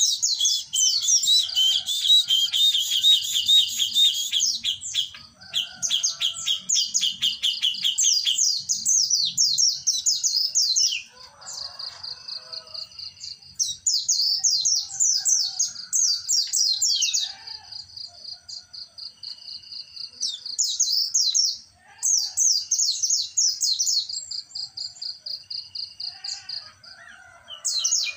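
Caged songbirds singing: an almost unbroken stream of fast, high-pitched trills and chattering phrases, with short pauses about eleven seconds in and again a little after twenty seconds.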